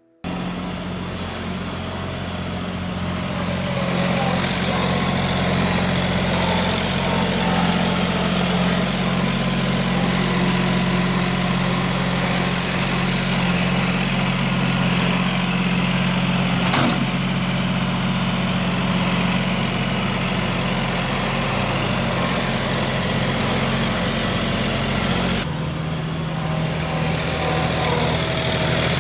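Tractor engine running steadily, with a single sharp knock about halfway through and a slight change in the engine note near the end.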